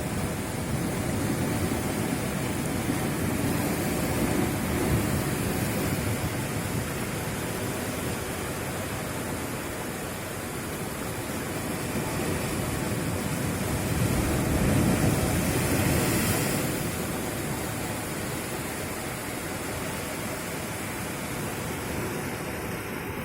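Steady roar of cyclone-driven wind and surf at the shore, swelling louder about four seconds in and again around fourteen seconds.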